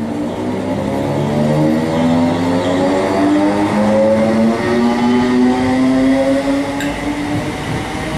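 BREL Class 318 electric multiple unit pulling away, its traction motors whining in several tones that climb in pitch as it gathers speed, over the rumble of wheels on rail. There is a brief click near the end.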